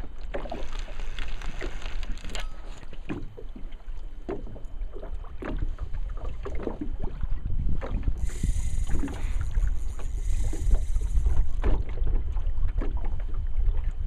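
Wind buffeting the microphone with a steady low rumble, while small waves slap and splash against the side of a small fishing boat.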